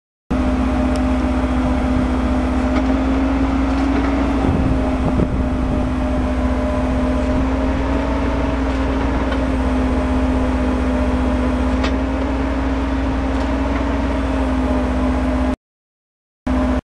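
Rotary drilling rig running steadily under load as it drives temporary borehole casing into the ground: a constant mechanical drone with a steady hum. A few faint knocks come about four to five seconds in, and the sound cuts out briefly near the end.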